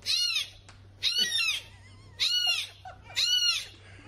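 Very young tabby kitten mewing four times, about one high-pitched cry a second, each rising and then falling in pitch.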